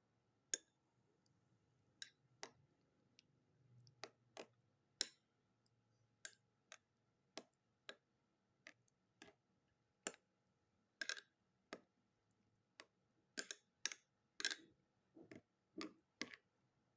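A spoon clicking against the side of its container as it stirs a thick yogurt mixture of ground ginger, turmeric and crushed garlic. The light, sharp ticks come irregularly, one or two a second, and grow busier in the second half.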